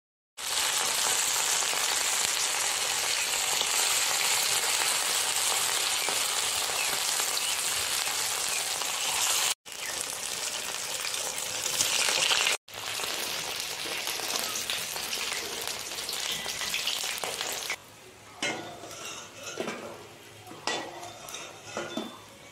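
Hot oil sizzling loudly as clumps of skunkvine leaf batter deep-fry in a kadai, with two sudden breaks of an instant. Near the end the sizzle drops and a metal spatula scrapes and taps against the pan as the fritters are lifted out.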